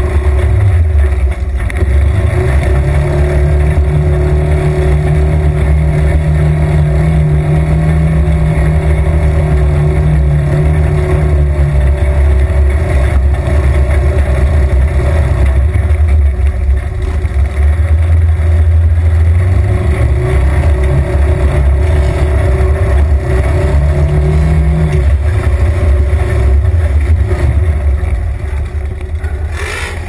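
Side-by-side off-road vehicle's engine running, heard from inside its open cab, loud and continuous. Engine speed steps up about two seconds in, holds for about ten seconds, then drops back, with a shorter rise again later on.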